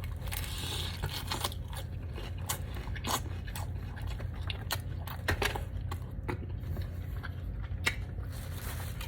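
A man biting into a chicken thigh and chewing it close to the microphone: scattered short mouth clicks and smacks over a steady low hum.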